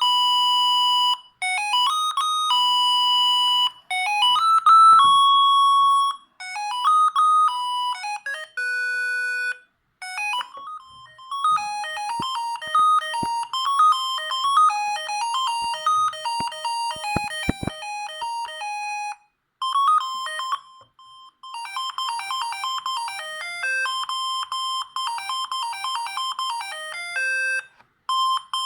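Siemens S45 mobile phone playing its built-in ringtones: several short electronic melodies of beeping notes, one tune after another with brief gaps between them.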